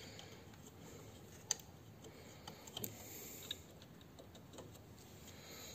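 A few faint, sharp clicks and taps of small plastic and metal parts being handled, the clearest about a second and a half in and a few more around three seconds in, over low room hiss.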